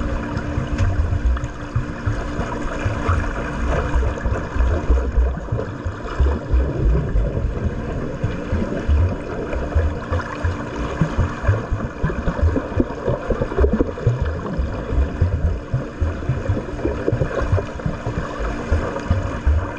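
Swimming pool water splashing and sloshing as a swimmer strokes through it, with irregular low thuds of water moving.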